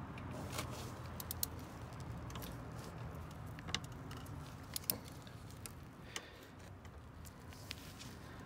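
Scattered faint metallic clicks and taps as a three-jaw oil filter wrench on a ratchet is worked against a car's oil filter to loosen it, over a faint low hum.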